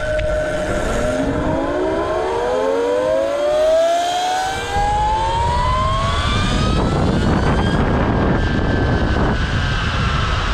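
Twin Castle 2028 800kv brushless motors of an electric go-kart whining under acceleration. The pitch climbs steadily for about eight seconds, then levels off and eases slightly downward near the end, over a steady low rumble of wind and road noise.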